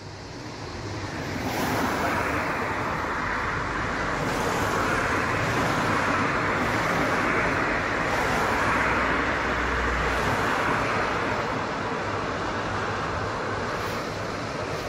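Road traffic passing on a town street: the steady noise of car tyres and engines. It swells over the first couple of seconds, with a deeper engine rumble building toward the middle, and eases slightly near the end.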